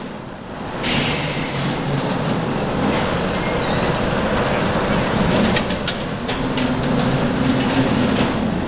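Roller coaster car rumbling along its steel track, with a sudden rush of noise about a second in and a few sharp clacks a little past the middle.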